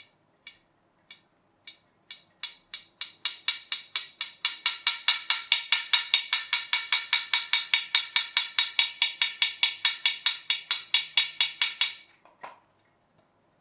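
A long run of sharp, evenly spaced clicks or taps on a hard surface, slow at first and quickening to about five a second, then stopping abruptly near the end, followed by one softer knock.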